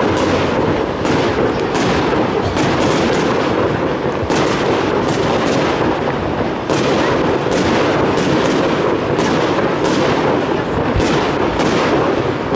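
Aerial fireworks display going off in a dense barrage, several bangs a second with no let-up.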